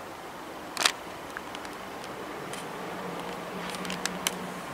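Railway platform ambience: a steady background hush with a sharp click about a second in and two lighter clicks near the end, and a faint low hum that comes in about halfway.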